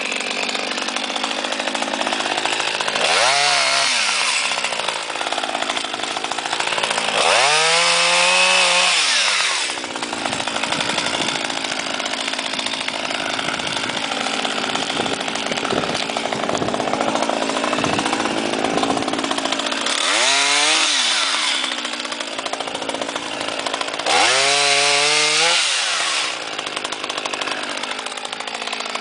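Small ECHO CS-270WES-12 two-stroke chainsaw engine, 26.9 cc, running at idle and revved up four times. Each rev rises in pitch and falls back to idle.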